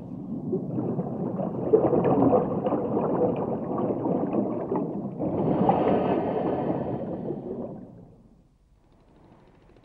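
Air bubbling underwater in two long swells, one after the other, fading away near the end.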